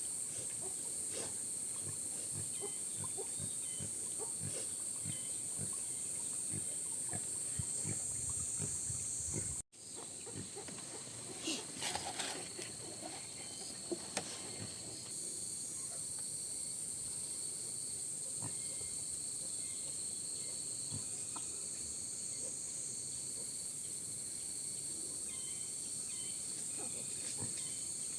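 Insects droning steadily at a high pitch, with scattered small knocks and rustles. A short animal call comes about twelve seconds in.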